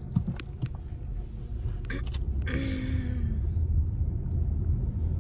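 Steady low rumble of a car on the move, heard from inside the cabin, with a few light clicks in the first second and a short hiss with a brief tone about two and a half seconds in.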